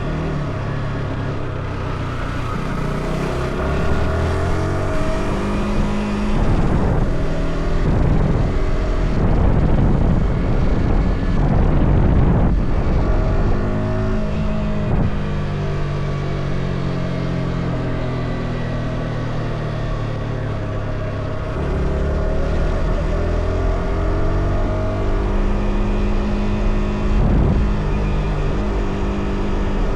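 Yamaha R125's 125 cc single-cylinder four-stroke engine on its stock exhaust, ridden on the road: the revs climb and drop repeatedly through the gears, ease off and fall for a stretch, then pick up again in the second half. Wind on the microphone runs underneath.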